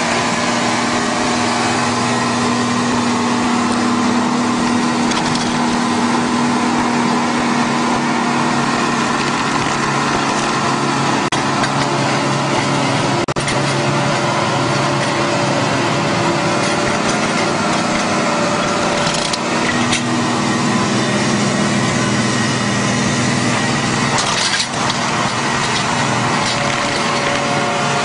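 New Holland 8870 tractor's diesel engine running steadily under load while a rear-mounted rotary stump cutter grinds into a tree stump, splintering and crushing the wood, with a few sharp cracks. The engine note shifts about two-thirds through.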